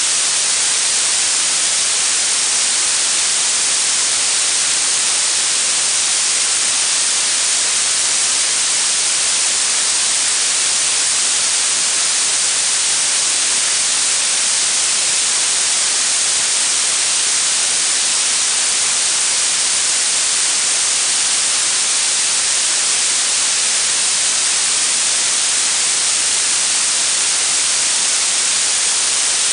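Blue noise: a steady, unbroken hiss weighted toward the high frequencies, bright and thin with little low end.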